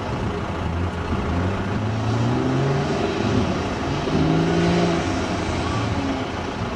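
Pulling tractor's engine running at full throttle under load as it starts dragging the weight sled, its pitch rising and falling.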